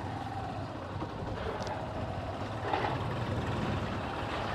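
A motor scooter's engine running as it rides over a dirt track, with a diesel tractor's engine coming toward it and getting louder from about halfway through.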